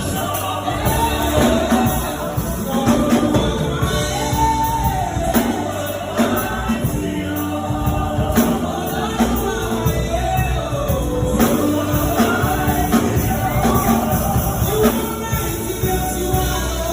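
Gospel worship music: voices singing over a band accompaniment with percussion.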